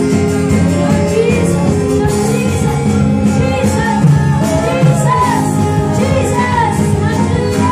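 Live worship band playing: several singers on microphones over electric bass, acoustic guitar and drums.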